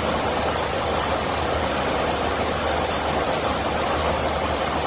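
Steady airliner cabin noise: an even hiss over a low hum that does not change.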